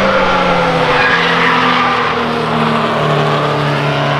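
Two cars driving hard on a race track: a Mercedes 190E 2.5-16 with its four-cylinder 16-valve engine and a BMW E30 ahead of it. The engine note sinks slowly, then drops lower about three seconds in.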